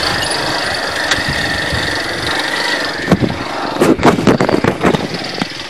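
Motorcycle engine running as the bike rides over a rough dirt road, with a cluster of loud, irregular knocks from about three to five seconds in.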